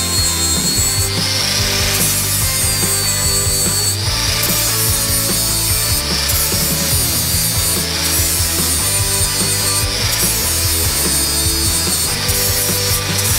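Corded angle grinder cutting a steel bracket off a pickup's frame. Its high whine rises and falls as the disc bites and is eased off, broken by several short pauses.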